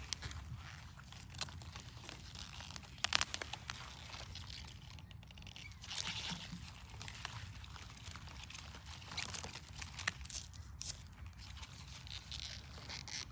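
Onions being pulled and handled in a garden bed, their dry, papery tops and skins crunching and crackling irregularly, loudest about three seconds in.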